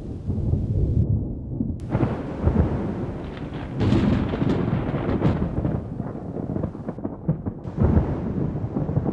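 Thunder rumbling in long continuous rolls, swelling louder about four seconds in and again near the end.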